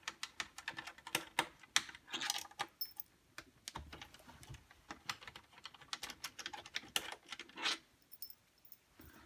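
Irregular quick clicks and taps of a small screwdriver backing screws out of the plastic rear case of a Compaq SLT 386s/20 laptop, some in quick clusters, with the tool and screws knocking against the plastic.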